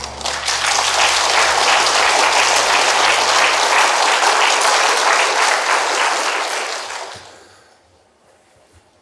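Studio audience applauding: dense, steady clapping that dies away about seven seconds in.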